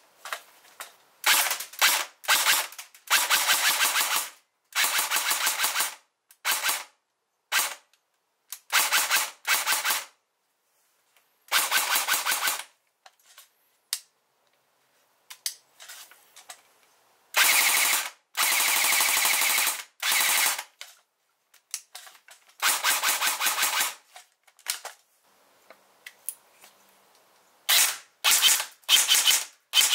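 Airsoft electric guns (AEGs) firing full-auto bursts of about half a second to two seconds, each a fast rattle of the gearbox cycling, mixed with single semi-auto shots. Most of the shooting is from an AK-style airsoft rifle; near the end a Hera Arms CQR M4-style AEG is in use.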